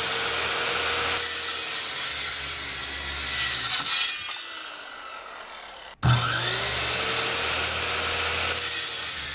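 JELLAS 13-amp corded circular saw cutting through a 2x6 board, then winding down with a falling whine about four seconds in. About six seconds in it starts again with a rising whine and runs on at full speed.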